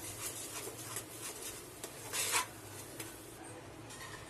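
Metal spatula scraping and stirring a thick barfi mixture of milk, milk powder, sugar and ghee around a kadhai: a soft, repeated rasping, with a louder scrape about two seconds in. The mixture has thickened almost to a dough and is starting to stick to the pan.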